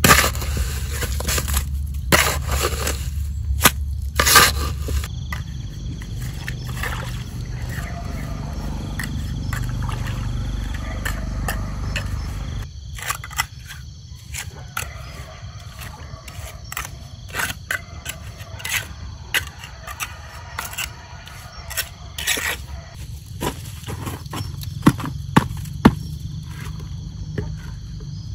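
Repeated short scrapes and knocks of a small hand scoop against rocks and wet mud, coming irregularly every second or so.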